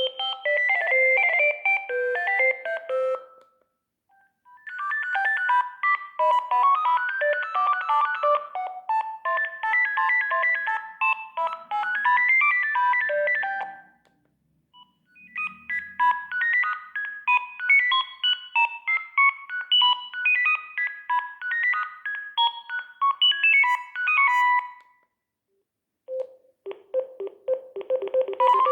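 Sagem myX-3 mobile phone playing its ringtone melodies one after another through its speaker: short electronic tunes of quick notes, each separated by a brief pause. Near the end a new tone starts with fast repeated lower notes.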